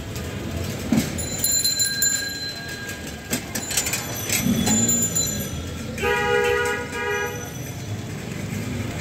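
Busy background ambience with scattered clicks and clatter, and a horn sounding once for about a second, six seconds in.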